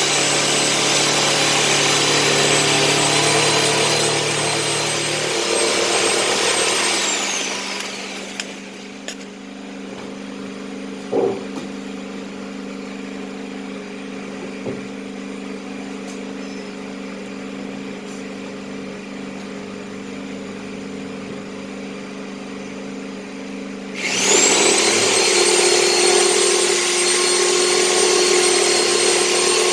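A power tool cutting through the welded drum of a Candy washing machine: its motor whines at high speed, is switched off and spins down about seven seconds in, then starts up again sharply about twenty-four seconds in and runs on. In the pause a steady low hum and a single knock are heard.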